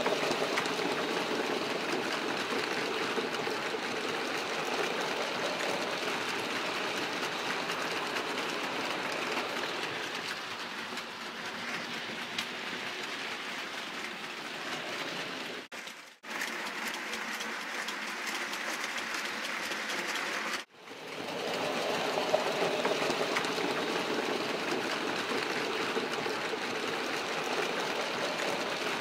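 Model trains running round a layout: a steady electric motor whirr with wheels rattling over the track. It drops out briefly twice, past the middle.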